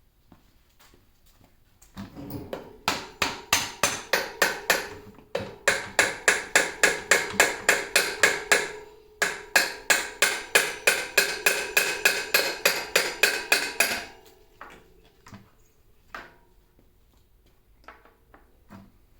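Juiced CCX e-bike hub motor grinding, a rhythmic knocking of about four strikes a second that runs for about twelve seconds, with two brief pauses, then stops. The regular knock is the hub fault being shown.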